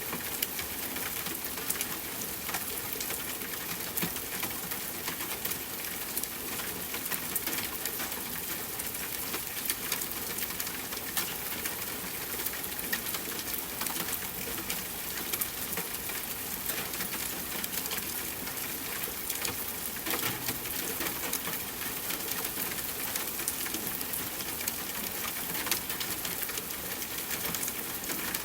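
Steady soft rain: an even hiss with many small drops ticking irregularly throughout.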